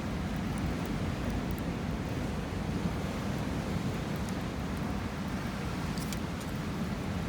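Steady rushing of sea surf mixed with wind on the microphone, with a few faint crackles, most of them about six seconds in.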